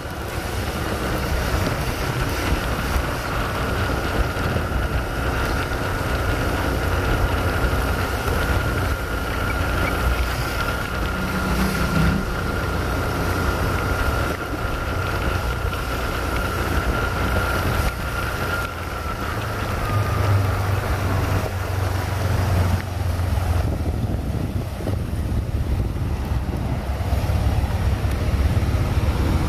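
A motor vehicle running steadily at low road speed, with wind rushing over the microphone and a faint steady whine that dips slightly about two-thirds of the way through. In the last third a heavier low rumble of road traffic joins in.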